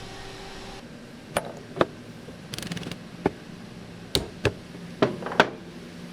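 Metal tooling and workholding being handled during a CNC machine setup: about seven sharp clicks and clunks, irregularly spaced, with a brief rattle near the middle, over a steady low hum.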